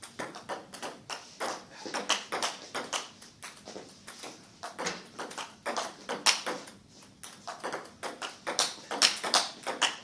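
Table tennis rally: the celluloid ball clicks off the bats and bounces on the table in a quick back-and-forth run of sharp pings, several a second.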